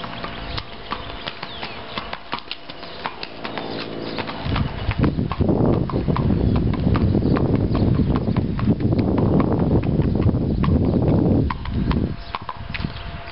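Hoofbeats of a Kentucky Mountain mare ridden along a hard farm lane, a quick run of clip-clops. From about four and a half seconds in until near twelve seconds a loud low rumble covers them.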